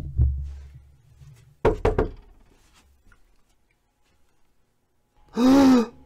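A few dull knocks and thumps, then about five seconds in a man's loud scream of fright, about half a second long, rising and falling in pitch.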